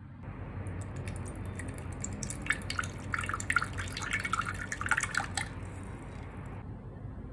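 Apple cider vinegar poured from a bottle into a small enamel mug, the stream splashing and trickling irregularly, starting just under a second in and stopping about five and a half seconds in.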